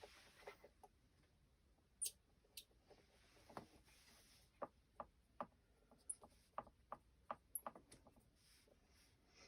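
Near silence broken by faint, scattered clicks and light taps from handling small parts, with a soft brief hiss at the start and another about three and a half seconds in.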